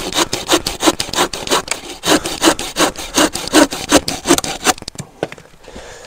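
Hand saw cutting through wood in quick, even back-and-forth strokes, about four to five a second. The sawing stops about three-quarters of the way through, followed by a few light knocks.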